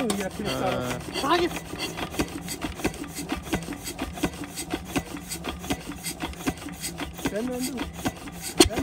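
A 12 hp single-cylinder diesel water-pump engine being turned over by hand with its starting handle, its flywheels giving a fast, even run of rasping chuffs as it begins to smoke. There is a sharp knock near the end, as it starts to fire.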